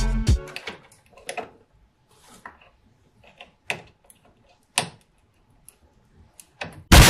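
Scattered small clicks and taps of PC power-supply cables and plastic connectors being handled and plugged in. Near the end a loud rushing burst of noise cuts in.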